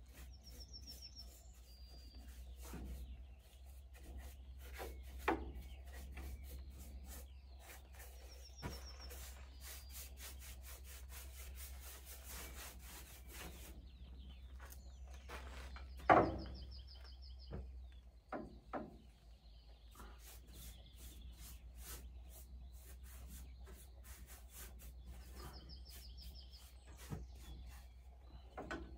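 A paintbrush scraping back and forth over a wooden board, applying wood impregnant in repeated scratchy strokes, with a knock about halfway through. A small bird sings a short high trill several times, and a low hum runs underneath.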